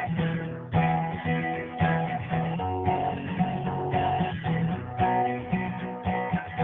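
Acoustic guitar strumming chords in an instrumental break, with a strong stroke about once a second and lighter strokes between.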